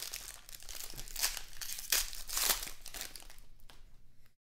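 Foil wrapper of a Panini Prestige football card pack crinkling and tearing as it is opened by hand, in a run of irregular rustles. The sound cuts off suddenly near the end.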